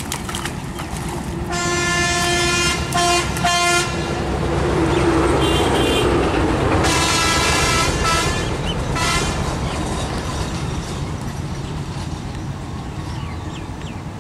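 A vehicle horn honking: one long toot and two short ones, then another longer blast a few seconds later, over the rumble of a motor vehicle going by.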